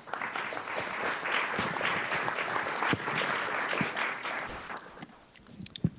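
Audience applauding, dying away after about five seconds, with a few sharp knocks near the end.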